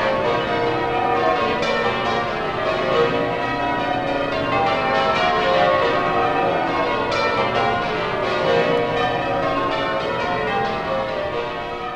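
Church bells pealing, many bells struck in quick succession with their tones ringing over one another, fading out near the end.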